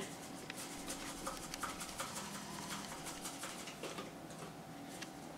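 Baking soda and yeast being shaken in a small plastic bottle: faint, irregular light ticks and rattles.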